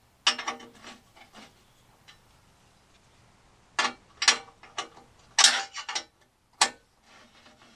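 Hand ratchet wrench clicking in short bursts as a nut is snugged onto a steel skid plate's mounting bolt, with a quiet pause between the first burst and the later ones.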